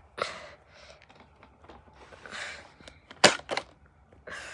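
Handling of plastic Nerf blaster parts: brief scraping and rustling, then one sharp plastic snap a little after three seconds in, with a smaller click right after, as a part such as a magazine is clicked into place.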